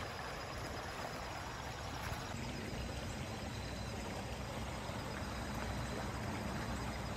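Shallow creek flowing over rocks: a steady, even rush of water. A faint high insect trill runs along with it.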